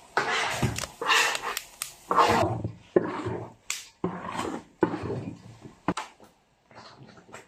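A metal spatula scrapes and stirs thick nut-flour paste (kuzhu tofu batter) around a large iron wok in repeated strokes, about one a second. Near the end come a few short knocks as the thickened paste is ladled into a stainless steel tray.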